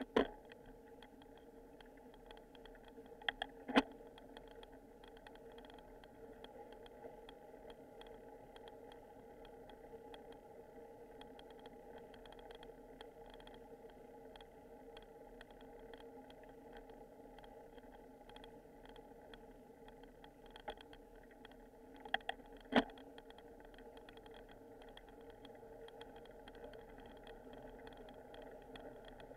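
Bicycle-mounted video recorder riding along a street: a steady low ride noise with a few sharp knocks and rattles from the camera jolting on its mount over bumps, the loudest at the very start, about four seconds in and about twenty-three seconds in.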